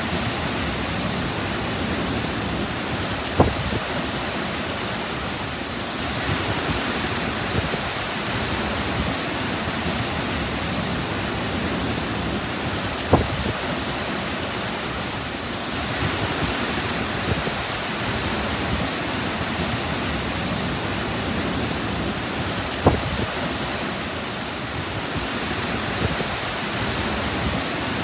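Heavy storm rain pouring down in strong wind, a steady rushing hiss. Three sharp knocks stand out, about ten seconds apart.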